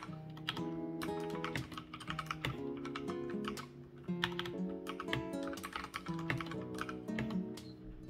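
Typing on a mechanical keyboard fitted with TTC Gold Pink linear switches: a quick, uneven run of key clacks, over background music.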